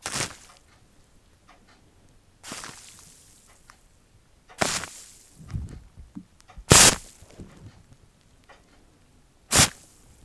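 Close-up ASMR trigger sounds: five short, sharp swishing strokes about two seconds apart, with quiet between them.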